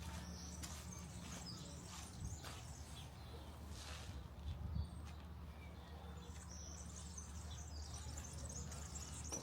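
Faint outdoor ambience of small birds twittering, heard at the start and again near the end, over a low steady hum and soft repeated footsteps.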